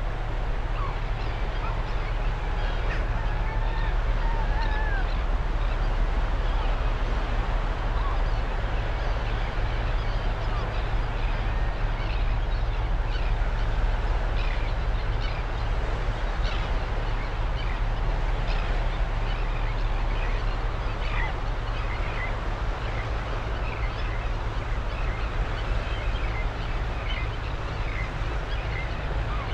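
Birds chirping and calling in many short notes over a steady rushing background and a low hum, with one longer wavering call a few seconds in.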